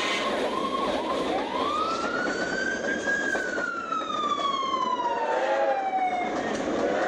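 Fire engine siren sweeping up in pitch over about two seconds, then sliding slowly back down, over the rumble of passenger cars rolling past.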